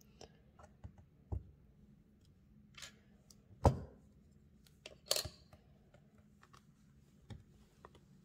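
Scattered light taps and clicks of 3D-printed plastic leaf cutters being pressed into a sheet of polymer clay and handled on a hard work board. The loudest is a dull knock about three and a half seconds in, followed by a sharper click about a second and a half later.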